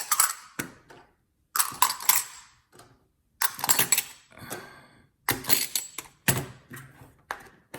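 Metal coins clicking and clattering against each other and a plastic coin tube as they are handled, in several short bursts of clatter with brief pauses between.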